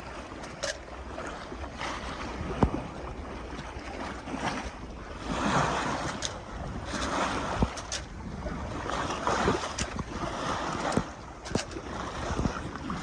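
Water rushing past a small sailboat's hull in repeated surges, under wind buffeting the microphone, with a few sharp knocks. The engine is off and the boat is under sail.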